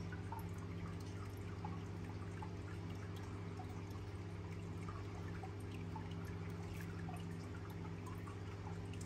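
Steady low hum with faint, scattered drips and trickling water throughout.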